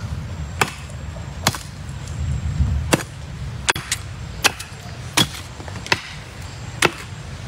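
Machete blade chopping into the base of a bamboo shoot: a series of sharp chops, about nine, roughly one every three-quarters of a second.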